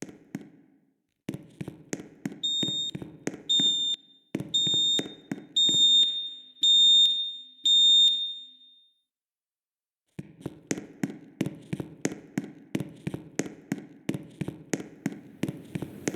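Fire alarm devices sounding during a system test: a rapid, repeated clicking with a low hum beneath it, joined for several seconds by six high-pitched electronic beeps about a second apart. The sound cuts out for about a second and the clicking starts again.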